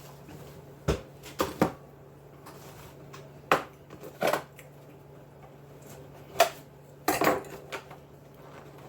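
Scattered sharp clicks and knocks of small hard objects being picked up and set down on a table, about eight in all, the loudest about 3.5 s in and a cluster around 7 s.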